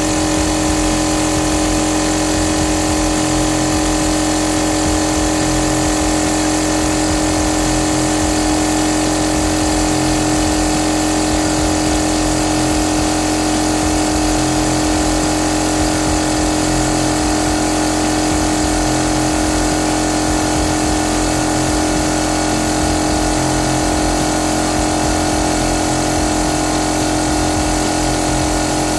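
Small 8-bar, 24-litre air compressor running steadily, its electric motor and piston pump charging the tank through the rebuilt pressure switch. It makes an even, unbroken hum with a strong constant tone.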